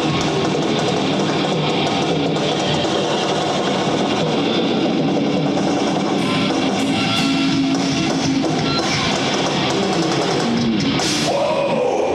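Metal band playing live: distorted electric guitars over a drum kit, loud and dense throughout.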